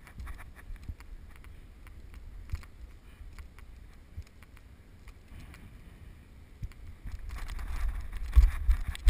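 Low wind rumble and rustling on a head-mounted camera's microphone, muffled by its waterproof housing, with scattered light clicks. About seven seconds in the noise grows louder, with several heavy thumps near the end as the wearer moves under an incoming football.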